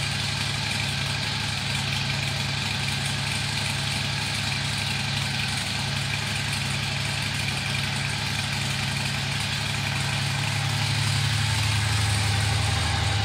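2013 Harley-Davidson Fat Bob's 103-cubic-inch V-twin idling steadily on its stock exhaust, shortly after a cold start. The note grows somewhat louder near the end.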